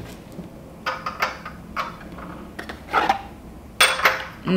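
Cut-glass shot glasses and their cardboard box handled on a glass tabletop: several light clinks and knocks at irregular intervals, the loudest about four seconds in.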